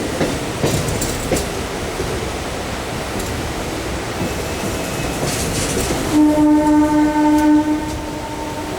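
MEMU electric train rolling with its wheels clicking over rail joints, then a train horn sounds about six seconds in and holds for a couple of seconds.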